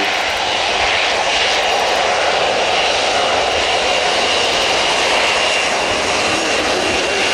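Airbus A400M's four Europrop TP400 turboprop engines running steadily while the aircraft rolls along the runway. A steady high whine sits over the propeller noise from about two seconds in.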